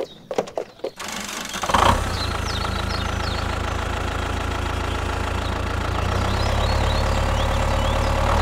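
Tractor engine starting with a short burst about two seconds in, then running steadily at idle with a low rumble that grows a little louder near the end. Birds chirp faintly over it, and a few sharp clicks come before the engine starts.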